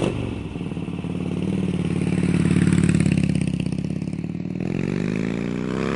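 Motorcycle engine running with an even, pulsing exhaust beat. It grows louder over the first few seconds, then revs up again near the end.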